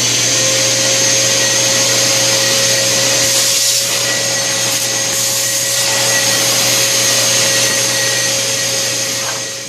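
Bissell Garage Pro wall-mounted wet/dry shop vacuum (model 18P03) running with its long hose and crevice tool fitted: a loud, steady rush of air with a constant motor whine. It shuts off right near the end.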